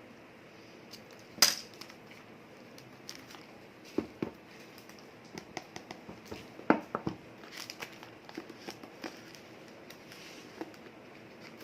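Handling of the phone's retail packaging: scattered sharp clicks, taps and crinkles of cardboard and plastic, the loudest about a second and a half in and again near four and seven seconds.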